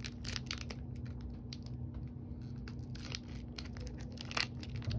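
A Topps Chrome trading-card pack wrapper being torn open by hand: a run of crackly crinkles and small rips, with a louder tear near the end.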